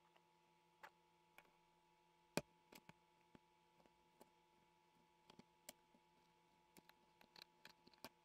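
Scattered light clicks and taps of a small plastic bottle being handled and worked on a tabletop, with one sharper knock about two seconds in. A faint steady hum lies underneath.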